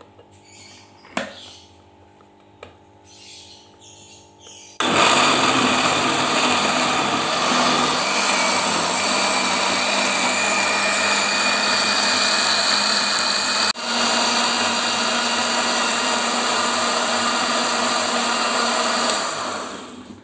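Miyako electric blender motor starting up after a few light knocks of the lid being fitted, then running steadily as it purées red chillies into a smooth paste. It breaks for an instant about two-thirds of the way through and winds down just before the end.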